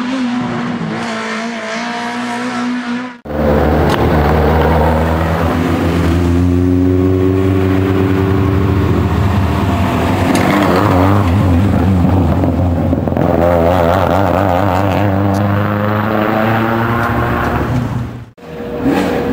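Škoda Octavia Kit Car race car's engine at full throttle, its pitch climbing and falling through the gears. A steadier, quieter engine note in the first three seconds breaks off abruptly into the louder running, which drops out sharply again near the end.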